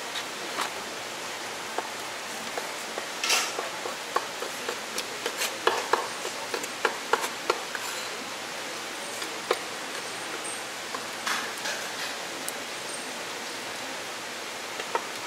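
Cleaver chopping cooked pork offal on a wooden cutting board: a run of sharp knocks, thickest through the middle and then a few more spaced out near the end, over a steady hiss.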